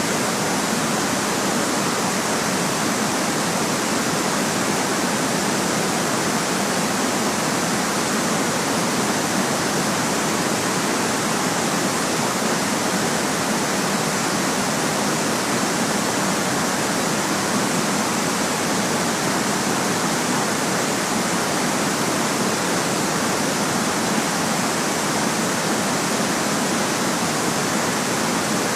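Steady, unchanging hiss of generated white noise, even across the high and middle pitches with little at the very lowest.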